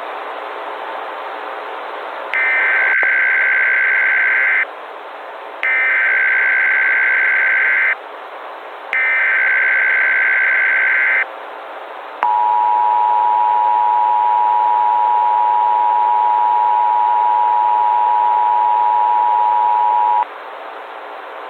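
Emergency Alert System signal: three roughly two-second bursts of SAME header data, a warbling digital screech, followed by the two-tone EAS attention signal held steady for about eight seconds. A constant hiss like a narrow-band broadcast runs underneath.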